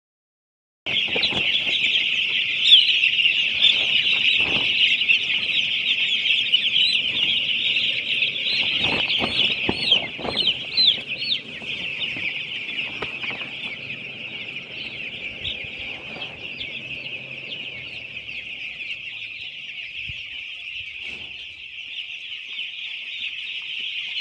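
Flock of eight-day-old broiler chicks peeping constantly in a dense chorus of overlapping high chirps, starting about a second in. A few dull knocks are mixed in during the first half, and the chorus drops somewhat in loudness about eleven seconds in.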